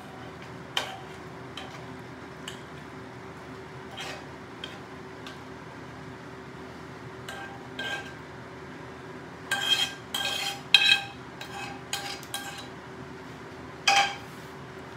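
Metal tongs clinking and scraping against a non-stick frying pan and ceramic bowls as linguine is served out. The knocks come scattered, with a run of sharper clinks about ten seconds in and another near the end, over a faint steady hum.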